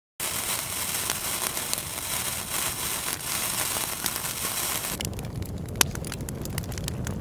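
Fire sound effect: flames crackling with a dense hiss, thinning about five seconds in to a low rumble with a few sharp pops.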